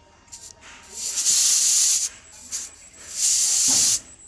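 Air hissing out of a car tyre's valve as a pressure gauge is pressed onto the stem. There are two hisses of about a second each, with short puffs before and between them.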